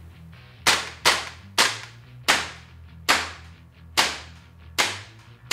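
Marushin M1 Carbine CO2 airsoft rifle firing 6mm BBs: seven sharp shots in quick succession, unevenly spaced about half a second to a second apart, each fading fast.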